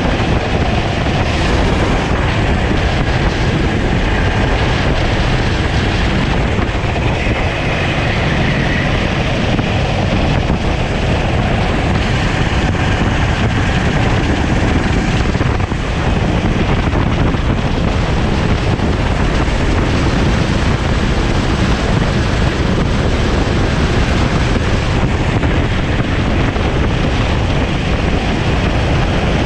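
Sodi racing kart's engine running hard at speed, heard onboard under heavy wind buffeting on the microphone. Steady and loud throughout.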